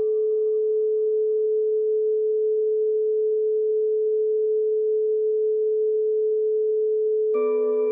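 A single sustained pure tone from meditative relaxation music, held steady at an even level, its faint upper overtones dying away in the first couple of seconds. Shortly before the end a fuller chord comes in, adding a lower tone and several higher ones.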